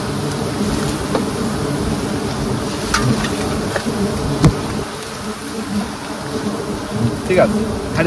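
A large swarm of giant honey bees buzzing densely around their open comb as it is smoked for harvesting, with a sharp tick about halfway through.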